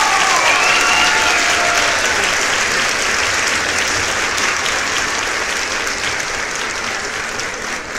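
Audience applauding, with a few voices cheering in the first two seconds; the clapping slowly dies down.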